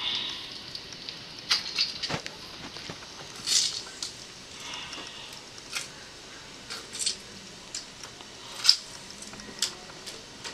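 A fresh lemon squeezed by hand over seafood in a plastic oven bag. Scattered short wet squishes and light rustles come at irregular moments.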